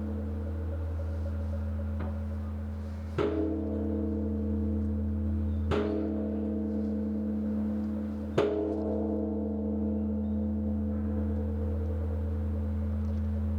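Large bronze Korean Buddhist temple bell (beomjong) ringing with a long, deep, steady hum. It is struck three times, about two and a half seconds apart from about three seconds in, and each strike renews the ringing.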